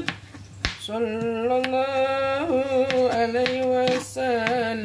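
A woman singing a selawat melody in long held notes, with several sharp knife strokes on a cutting board as she slices kailan stems.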